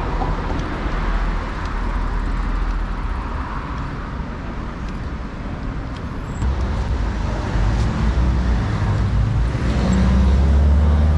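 Street traffic: cars passing on a busy road, a steady rush of noise, with a vehicle's low engine rumble growing louder near the end.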